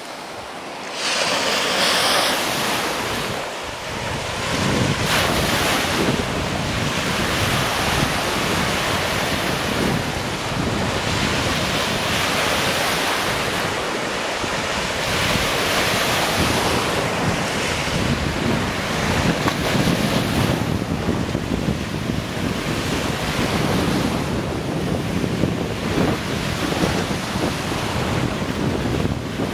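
Small Lake Michigan waves breaking and washing up on a sandy shore, the noise swelling and easing every few seconds, with wind buffeting the microphone.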